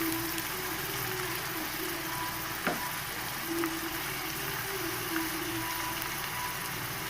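Browned onions and ginger paste frying in hot mustard oil in a kadai, a steady sizzle, with one short tap a little before the middle.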